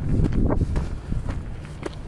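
Footsteps walking uphill on a trail, a few steps spaced about half a second to a second apart, over a steady low rumble of wind buffeting the microphone.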